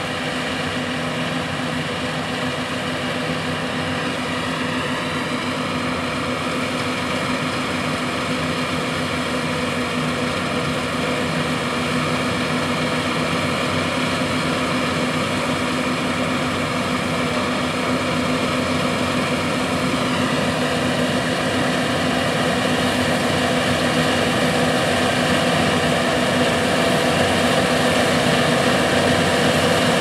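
John Deere S790 and S690 combines harvesting wheat: a steady drone of diesel engines and threshing machinery that grows gradually louder as the lead combine comes closer.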